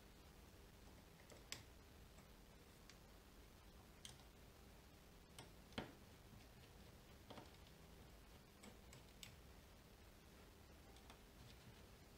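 Faint, scattered small clicks and taps of metal tweezers and a screwdriver on a Samsung Galaxy S10's frame and internal parts, the sharpest about six seconds in, over near silence.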